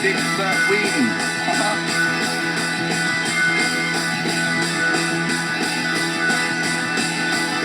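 Rock music led by strummed electric guitar, playing steadily.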